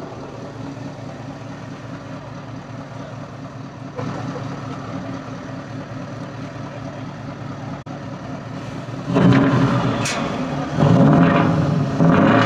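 Scania truck engine with an open, straight-through exhaust pipe, running low and steady as the truck rolls slowly, then revved hard in repeated surges from about nine seconds in, much louder each time.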